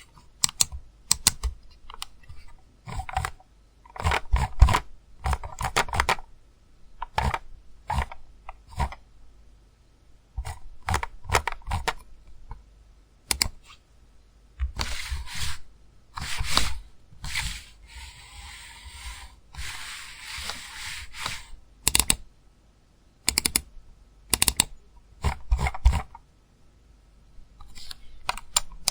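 Computer mouse button clicks, played as a series of separate recordings: single clicks and quick double clicks or short runs with pauses between them. A stretch of steadier rasping clatter comes about two-thirds of the way through.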